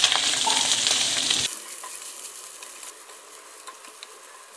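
Cooked rice being stirred and tossed with a wooden spatula in a hot pan, with a frying sizzle under the scraping of the spatula. About a second and a half in the sound abruptly turns thinner and quieter, then keeps going.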